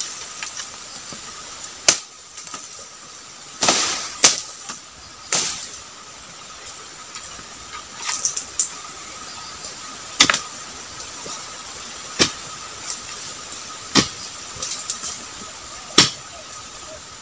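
A dodos, a chisel blade on a long pole, chopping into the frond bases of a low oil palm: about ten sharp strikes, roughly one every two seconds, a couple of them in quick pairs.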